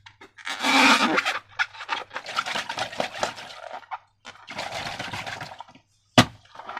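Sticky slime squelching and crackling in two long runs of wet bursts, then a single sharp click near the end.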